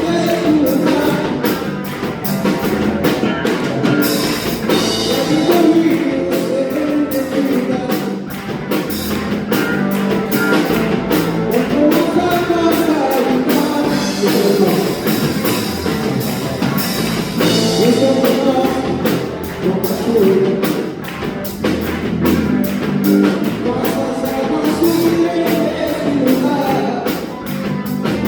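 Contemporary worship song with a singing voice over a full band: electric guitar, bass and a steady drum-kit beat.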